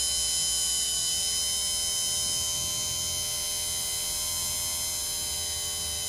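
Ford Escort XR3 blower motor, a small brushed electric motor, running steadily with no fan wheel fitted: an even hum with a high whine. It spins freely on its newly rebuilt bushings.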